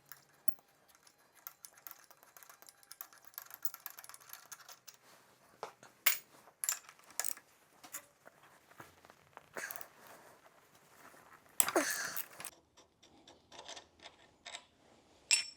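Small metal clicks and taps of hand tools and parts being worked on a motorcycle's front end, with a few sharper clinks and a short scraping rustle about twelve seconds in.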